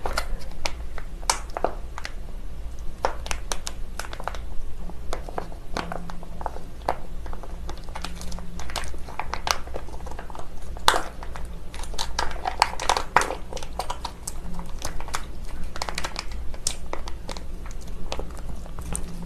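Plastic spout pouch of sauce being squeezed and wrung by hand, giving off irregular crinkling and crackling with many small clicks.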